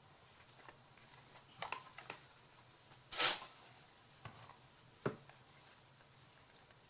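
Paper and craft materials being handled on a work surface: scattered light rustles and taps, one louder brief rustle about three seconds in and a sharp tap about five seconds in, over a faint steady hum.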